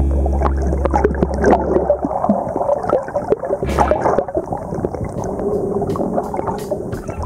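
Water gurgling and sloshing around a camera held underwater, with scattered clicks. Background music plays for about the first two seconds, then drops out.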